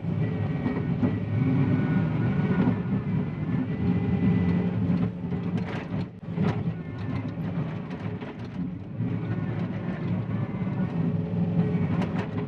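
John Deere 333E compact track loader's diesel engine running under load as it pushes soil, with a faint steady whine above the engine. Sharp metallic clanks from the machine come in bunches, about five to seven seconds in and again near the end.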